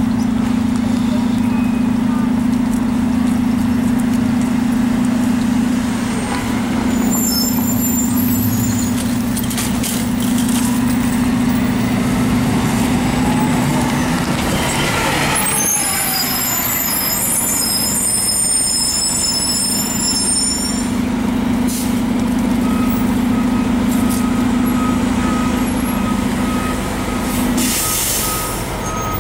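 Diesel city transit buses at a street corner. One bus's engine idles with a steady low hum. About halfway through, a T80-206 RTS bus passes close by, its engine sound falling in pitch as it goes, with high-pitched brake squeals before and after. Near the end there is a regular series of beeps.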